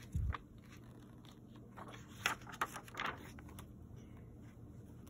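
A page of a picture book being turned and pressed flat by hand: faint paper rustles and a few light scrapes and clicks, with a soft low thump just after the start.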